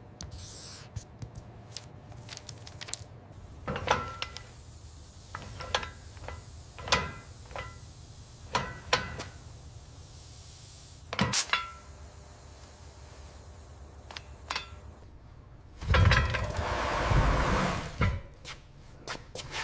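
Tools and metal parts being handled: scattered knocks and clinks, some ringing briefly, then a louder rough stretch about three-quarters of the way in.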